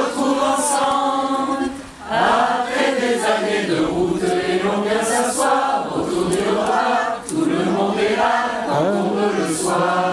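A mixed group of men's and women's voices singing a French song together as a choir, led by a conductor, in phrases broken by short breaths about two seconds in and again near seven seconds.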